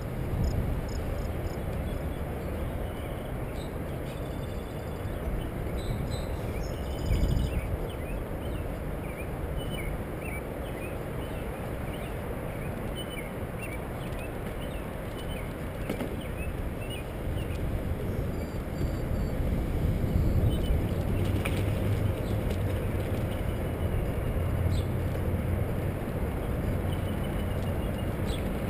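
Steady wind and rolling rumble from riding a bicycle, louder in the second half, with faint bird chirps now and then.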